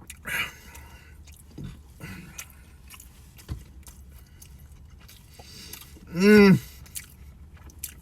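Close-up chewing of a fried chicken sandwich, with small crunches and wet mouth clicks. About six seconds in comes a short hummed 'mm' from the eater, the loudest sound.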